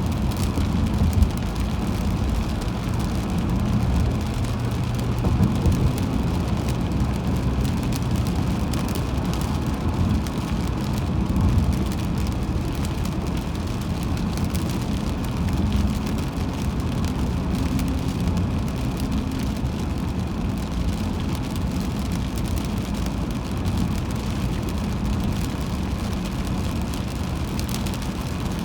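Car driving on a highway in the rain: a steady low rumble of tyres and engine with an even hiss of wet road above it.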